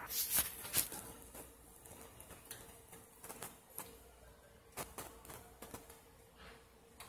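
Breaded flounder fillet frying in hot oil, the oil popping and crackling in scattered sharp pops, loudest in the first second.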